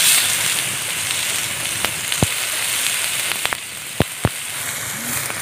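Marinated chicken pieces sizzling on a hot stone slab over an open wood fire: a steady hiss with a handful of sharp pops.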